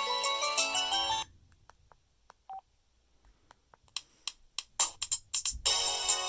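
LG AX145 mobile phone playing an electronic ringtone melody that stops about a second in. A quiet gap follows with scattered clicks and one short beep, then a quick run of clicks. A different ringtone melody starts near the end.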